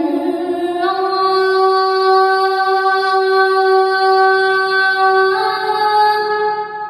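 A boy's unaccompanied voice calling the adhan, the Islamic call to prayer, holding one long drawn-out note for several seconds. The pitch steps up about a second in and again near the end, then the voice fades out.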